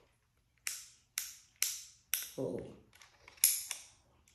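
A series of sharp clicks and snaps, about eight in four seconds, from handling the mechanism of an AEA M50 .45 calibre PCP air rifle, with a brief hum of voice about halfway through.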